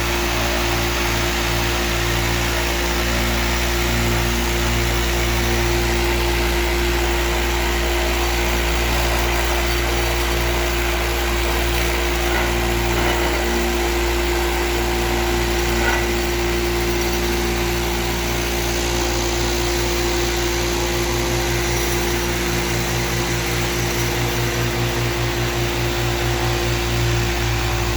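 Floor sander running steadily under load as it is pushed across deck boards: a constant motor hum with the hiss of sandpaper on wood.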